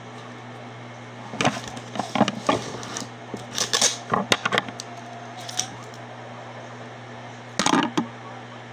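Handling noise close to the microphone: clusters of rustling, knocking and clattering as things are moved about on the table, the busiest stretch from about one and a half to four and a half seconds in and a shorter burst near the end, over a steady low hum.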